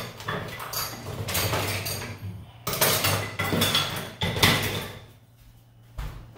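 Rummaging through tools and parts, with irregular clinks, knocks and rustling, the loudest clatters about three and four and a half seconds in. Under it runs a faint steady low hum.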